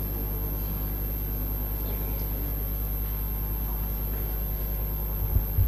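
Steady low electrical hum with faint hall room tone on the sound feed, with two soft thumps near the end.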